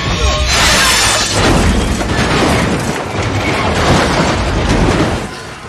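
Film action sound effects with music underneath: heavy booms and crashing, smashing debris. A loud rushing burst comes about half a second in, and the sound falls away near the end.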